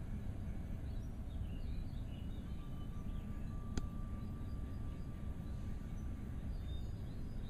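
Steady low rumble of blizzard wind, with faint bird chirps and a single sharp click about halfway through.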